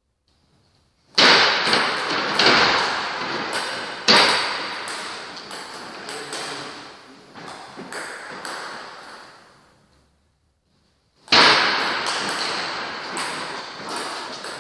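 Table tennis rally: a celluloid-type ball knocking off paddles and the table, a string of sharp clicks that echo in a large hall, starting about a second in and dying away. Another loud knock comes near the end.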